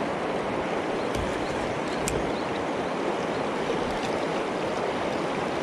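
Fast river current rushing steadily over shallow riffles, an even wash of moving water.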